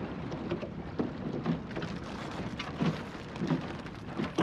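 Water rushing and splashing around the bow of a plywood Goat Island skiff under sail, with irregular slaps of small waves against the hull.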